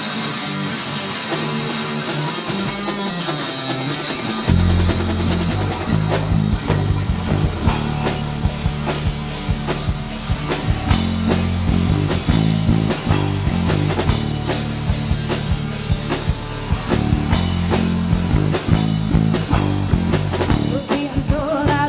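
Rock band playing live: electric guitar alone at first, then drums and bass guitar come in about four seconds in and the full band plays on. A woman's singing voice starts near the end.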